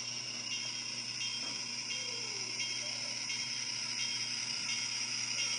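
HO-scale model diesel locomotive with onboard engine sound running along the track, a steady diesel hum with a light ticking roughly twice a second, growing slightly louder as it approaches.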